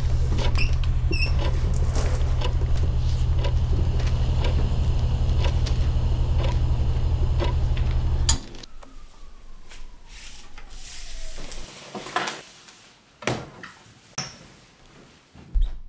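A loud, steady low hum with faint ticking over it cuts off suddenly about eight seconds in. After that come a quiet falling tone and a few scattered knocks and clicks.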